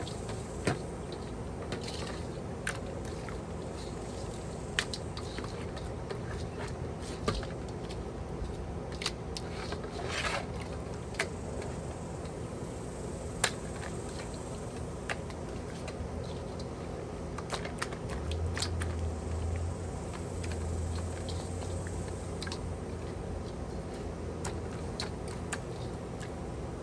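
Hands kneading and squeezing stingray pieces in chili-sauce marinade in a stainless steel bowl: wet squishing with scattered sharp clicks. A steady low hum runs underneath and grows louder for a few seconds past the middle.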